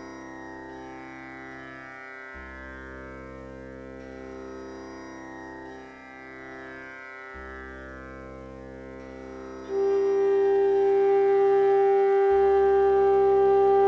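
Indian classical instrumental background music over a steady drone. About ten seconds in, a much louder single held note comes in and sustains.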